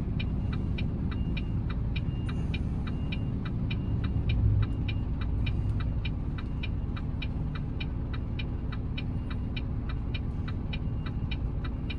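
Volvo FE 320 lorry's diesel engine running low and steady during slow manoeuvring, heard from inside the cab. A fast, even ticking, about two and a half a second, runs over it, and a faint high beep comes and goes for the first few seconds.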